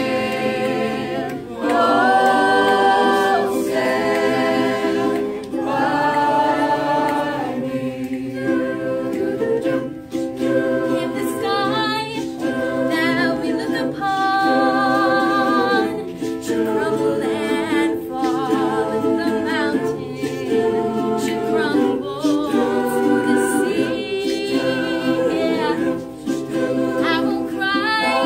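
Mixed-voice high school choir singing a cappella in close harmony. About halfway through, a female soloist sings out over the group with a wavering vibrato.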